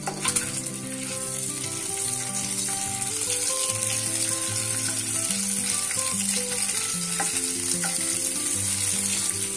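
Peeled hard-boiled eggs sizzling steadily in hot oil in a non-stick pan while a spoon turns them, with a few clicks of the spoon against the pan. Background music plays underneath.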